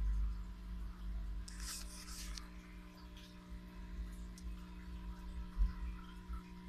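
Steady electrical hum of aquarium equipment (sump pump, canister filter and air pump) under a low rumble, with a brief hiss about a second and a half in.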